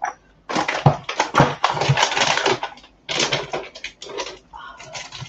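Kitchen things being handled and put away: an irregular run of clattering and rustling with a few dull knocks, busiest in the first three seconds.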